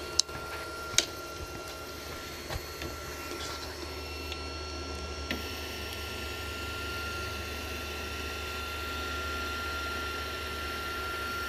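Creality Ender 3 V3 Plus 3D printer running its startup self-check: a steady motor whine with a low hum, with a few sharp clicks in the first five or so seconds.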